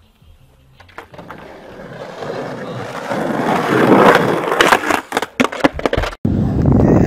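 Skateboard wheels rolling over rough, cracked concrete, growing steadily louder. Then a run of sharp clacks as the board knocks and clatters, cut off suddenly near the end.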